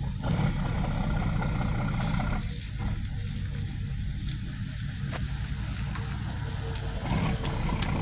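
High-speed passenger ferry's engines running, a steady low rumble with a faint hum coming in about halfway through, and a few light ticks over it.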